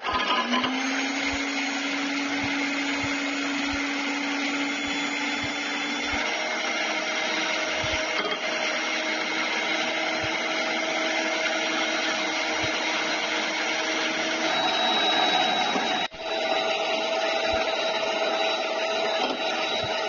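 Electric hand mixer running steadily, its beaters whipping egg whites to foam in an enamel pot. The motor's hum changes pitch about six seconds in and breaks off for an instant around sixteen seconds.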